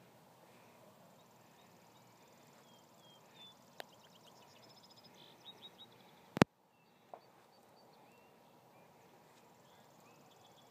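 Quiet field ambience at dusk: insects trilling steadily and high, with a few short bird chirps in the middle. About six seconds in comes one loud sharp click with a moment of dead silence after it, like a phone microphone being bumped, and two smaller clicks either side.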